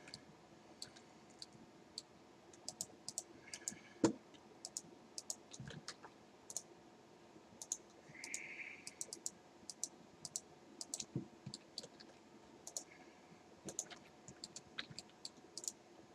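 Computer mouse and keyboard clicks, quiet and irregular, as vertices are selected and moved in Blender, with one louder knock about four seconds in.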